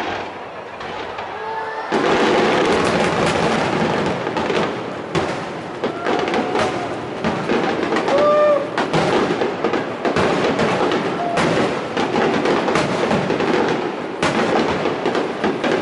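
Starmine fireworks barrage: rapid, overlapping bangs and crackling with no break. It becomes much louder about two seconds in.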